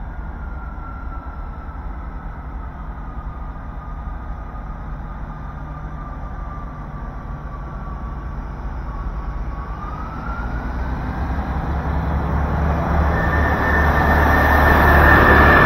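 A train approaching, its low rumble growing steadily louder over the last several seconds. A thin high squeal slides slowly down in pitch, rises briefly about ten seconds in, then holds steady as the train comes close.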